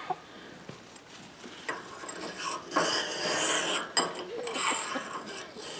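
Steel ice auger blade being stroked across an abrasive sharpening surface, giving two long rasping strokes after a quieter start. It is being hand-honed to clean up dings and burred edges.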